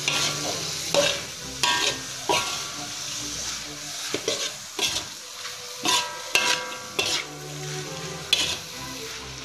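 Metal spatula scraping and clanking against a metal wok in irregular strokes while stir-frying shredded cabbage and prawns, over a steady sizzle of the oil; some strokes leave a brief metallic ring.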